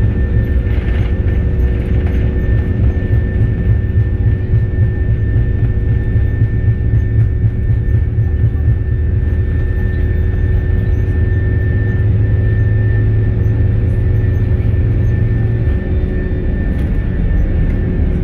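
An airliner's jet engines heard from inside the cabin while the plane rolls on the ground: a steady low rumble with a constant high whine. The deepest part of the rumble eases slightly near the end.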